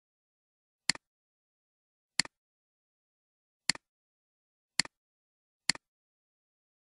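Computer mouse button clicking five times, each click a quick press-and-release double tick, about a second apart.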